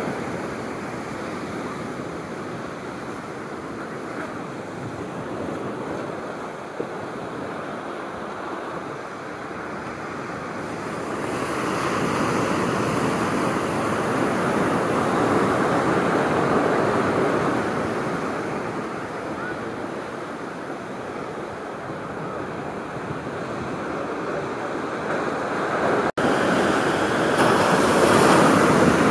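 Pacific surf breaking and washing up on a sand-and-pebble beach. It swells louder as a set of waves comes in about halfway through, eases, then builds again near the end.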